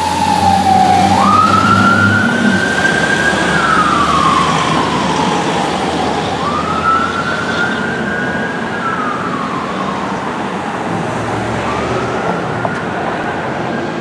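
1999 Pierce Dash fire engine's siren wailing: a quick rise, a hold, then a long slide down, repeating about every five seconds. It slowly grows fainter as the engine drives away.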